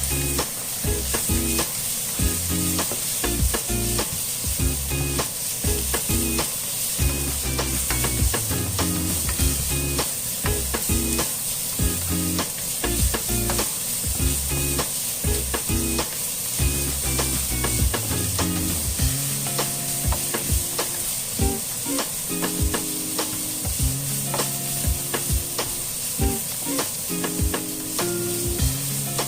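Food sizzling in hot oil in a pan, steady throughout, with frequent sharp clicks of a utensil stirring it.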